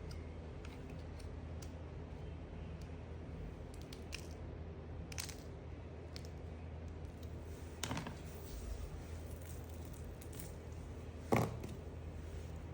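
A blade cutting into soap: a few scattered crisp cracks, with the sharpest and loudest one just over 11 seconds in, over a steady low hum.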